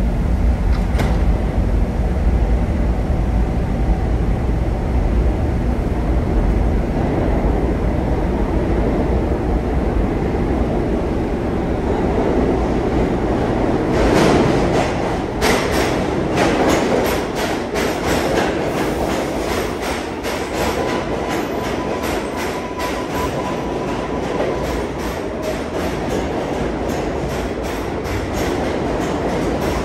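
Kawasaki R142A subway train pulling out of the station. A low rumble as it starts off, then from about halfway a fast clatter of wheels over rail joints as the cars pass, slowly fading as the train draws away.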